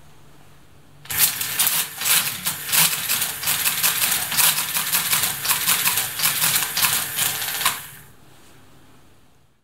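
SCM Hamann Automatic 505 motor-driven mechanical calculator working through a multiplication: a rapid, dense metallic clatter of its gears and stepping mechanism that starts about a second in and stops near the end, with a faint steady hum either side.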